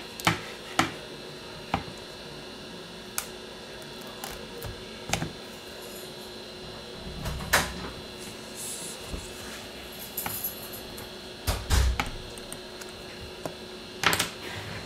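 Irregular small clicks and taps of a plastic triangle opening pick and a metal pry tool working around the edge of an iPhone XS Max screen as the adhesive is loosened, with a heavier knock about three-quarters of the way through. A faint steady hum lies underneath.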